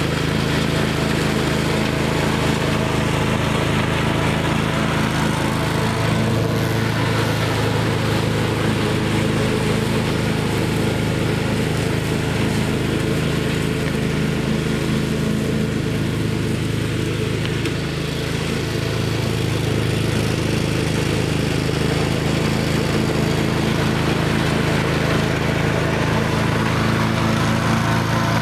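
Scag 52 zero-turn mower's 17 horsepower Kawasaki FH500V V-twin engine running steadily, with a slight dip in loudness about two thirds of the way through.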